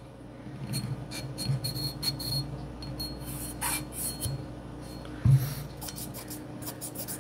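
Glock 19X pistol slide being wiped by hand along its rails: soft rubbing and scratching with small handling ticks, and one thump about five seconds in.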